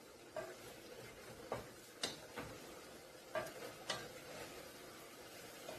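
A spoon stirring onion soup mix into the contents of a stainless steel pot, clinking against the pot about six times at irregular intervals.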